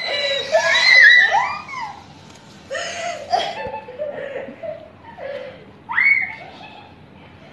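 Two young girls shrieking and laughing: long high-pitched squeals in the first two seconds, then giggling and chatter, and another short squeal about six seconds in.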